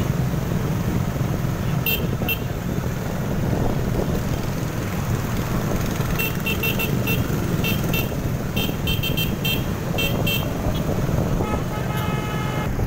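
Motorcycle engine and wind noise while riding at road speed in a group, with short high horn beeps: a couple about two seconds in, then many quick beeps from about six seconds in, and a longer pitched horn tone near the end.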